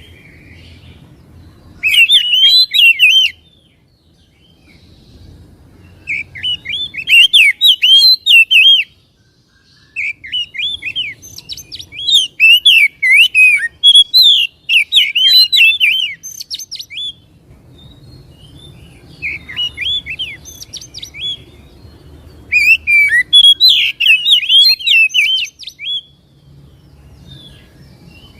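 Oriental magpie-robin (kacer) singing loudly in rapid whistled phrases of varied notes, five bursts of song separated by short pauses, the longest about six seconds in the middle.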